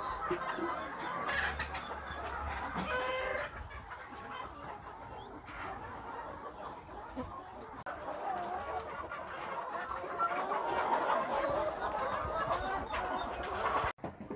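A flock of local (indigenous) chickens clucking and calling over one another, busiest a little past the middle.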